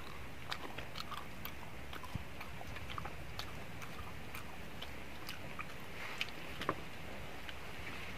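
A person chewing a mouthful of fried fish and rice eaten by hand, with irregular small wet clicks from the mouth and fingers over a steady low background rumble.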